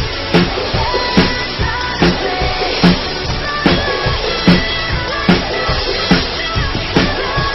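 Drum kit played over a recorded song, with a steady beat and a hard hit about every 0.8 seconds.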